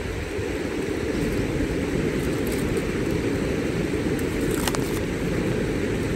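Steady low rushing noise with a few faint sharp crackles from the wood campfire, and a short cluster of clicks about four and a half seconds in as the plastic sauce pouch is handled.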